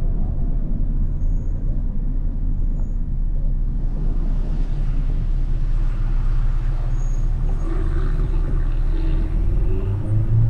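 Car driving in traffic: a steady low engine rumble with road noise, which grows fuller about four seconds in, and an engine note that wavers in pitch near the end.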